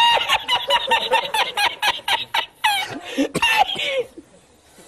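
A man laughing uncontrollably in rapid high-pitched bursts, a couple of them sliding down in pitch, dying away about four seconds in.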